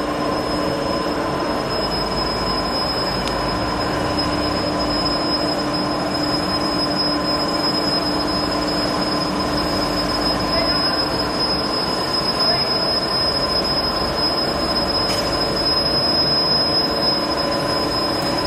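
Steady machine noise with a constant high whine over a lower hum, the hum fading about halfway through.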